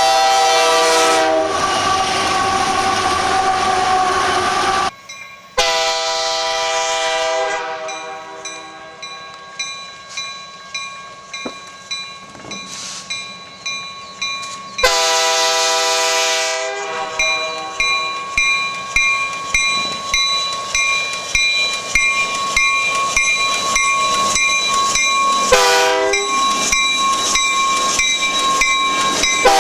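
Nathan K3H/K3L five-chime air horns on freight locomotives, sounding a long chord, then a second blast, another about halfway through and a short blast near the end, with sudden cuts between clips. Between the blasts a regular beat of strokes, about one and a half a second, goes on under steady high tones.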